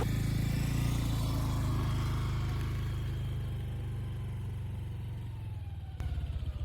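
A vehicle engine running steadily with a low hum that slowly fades, then a sharp click and a few louder throbs near the end.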